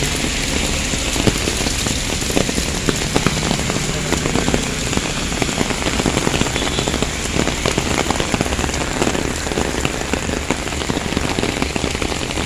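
Heavy rain mixed with hail beating on pavement and parked cars: a dense, steady hiss shot through with many sharp ticks of hailstones striking hard surfaces.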